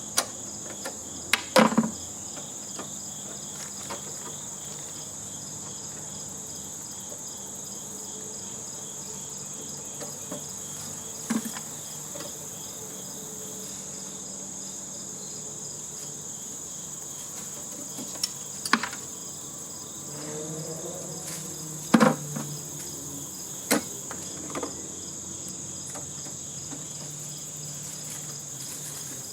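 Steady high-pitched insect chorus. It is broken by a handful of short, sharp knocks and clanks at irregular intervals, the loudest near the start and again a little past the middle.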